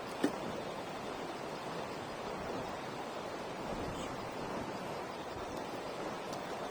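Campfire burning with a steady hiss and occasional crackles, one sharp pop from the wood about a quarter second in.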